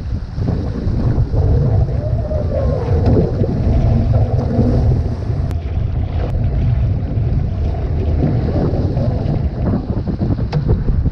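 Wind buffeting the microphone over water rushing and splashing along the hull of a one-person outrigger canoe (OC-1) surfing downwind swells, loud and steady.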